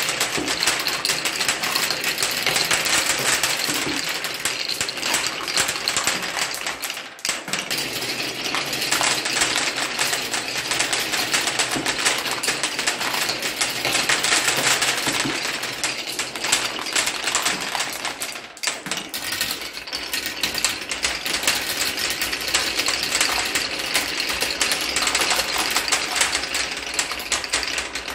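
Many small marbles clattering down a wooden marble-run track and dropping into plastic toy dump-truck beds: a dense, continuous rattle of clicks, with brief lulls about 7 and 18 seconds in.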